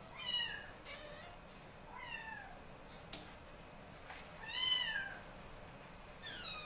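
Domestic cat meowing repeatedly, about five meows, most falling in pitch, the loudest and longest about four and a half seconds in. A single sharp click about three seconds in.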